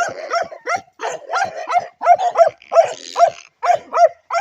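Excited puppy barking rapidly and repeatedly, about three or four short barks a second, as the pup is worked up with a toy.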